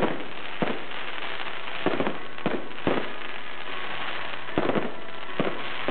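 Fireworks display: aerial fireworks bursting in about seven sharp bangs at irregular intervals over a continuous hiss and crackle.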